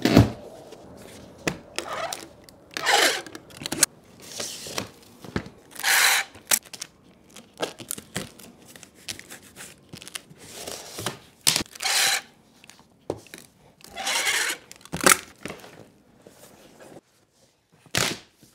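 Large cardboard bike shipping box being torn open and pulled off: cardboard ripping, scraping and rubbing in uneven strokes, with scattered knocks and a sharp knock near the end as the box is moved.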